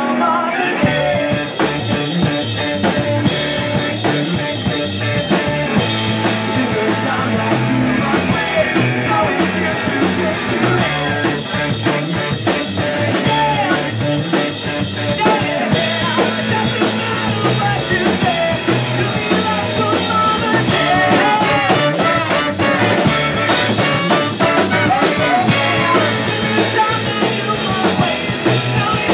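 Ska-punk band playing live: a drum kit and guitars at a steady, loud level.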